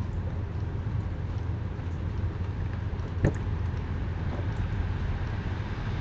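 Sliding storm shutters (amado) on a house's upper floor being worked, with one sharp knock a little over three seconds in, over a steady low background rumble.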